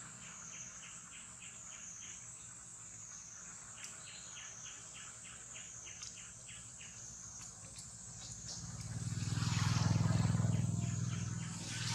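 Outdoor insect chorus: a steady high-pitched insect drone with a rhythmic chirping that repeats several times a second. Near the end a louder low hum swells up and fades.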